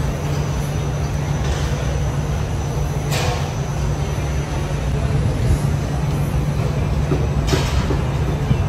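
Steady low rumble and hum of a busy indoor hall, with two short hisses, about three seconds and seven and a half seconds in.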